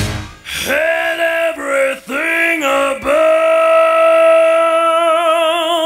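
Music: a solo singing voice with almost no accompaniment. It sings a few short phrases, then holds one long note that wavers into vibrato near the end.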